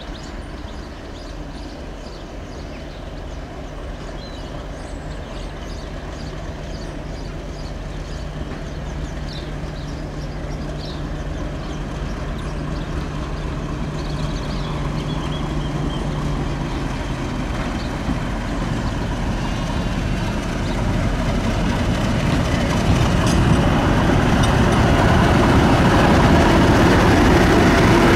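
British Rail Class 50 diesel locomotive's English Electric 16-cylinder engine approaching and growing steadily louder. A steady low hum fills out into a loud, rough engine sound as the locomotive reaches the platform and runs past near the end.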